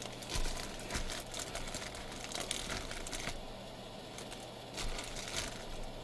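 Foil wrappers of 2017 Elite Extra Edition trading-card packs crinkling and crackling in the hands as the packs are handled and opened, busiest for about the first three seconds and again briefly around five seconds in.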